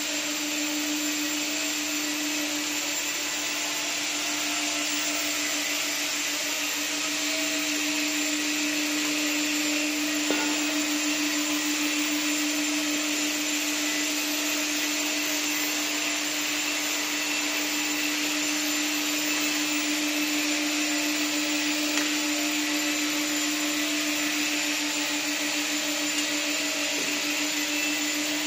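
Hydraulic pump unit of a CNC tube bender running: a steady hum with a constant hiss, and a few light clicks.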